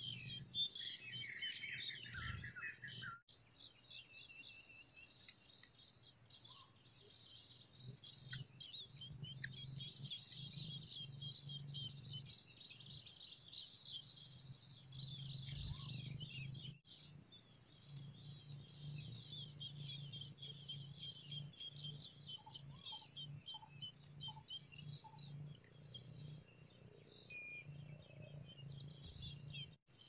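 Sparrow nestlings giving rapid, high-pitched begging chirps at the nest, over a steady high whine like crickets. The sound breaks off briefly at a few cuts.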